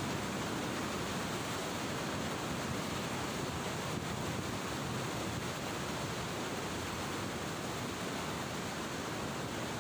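Steady rushing of a swollen, turbulent river at a weir: an even, unbroken roar of fast-flowing water.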